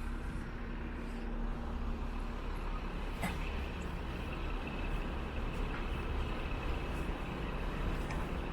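Street traffic: a steady low rumble of vehicle engines, with a single brief click a little over three seconds in.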